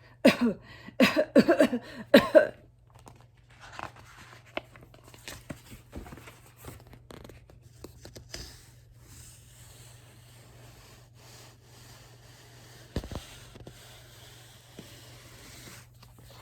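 A few short voice sounds in the first two seconds. Then quiet rustling and handling of a paperback picture book's pages, with a single knock about thirteen seconds in, over a low steady hum.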